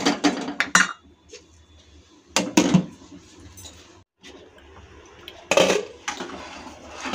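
A metal ladle stirring and knocking against a kadai of sambar in a quick run of clinks, then two separate louder clinks of cookware a few seconds apart.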